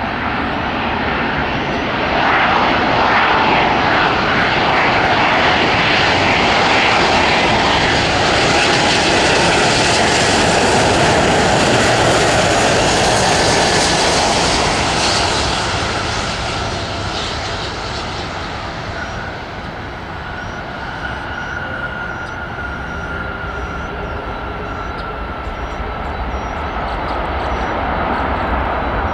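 Airliner jet engines passing close by: a loud roar builds over a couple of seconds, holds, then fades about twenty seconds in, and the noise swells again near the end.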